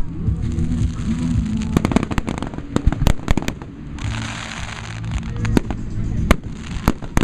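Aerial fireworks going off in a rapid, irregular series of bangs and crackles, over low background music.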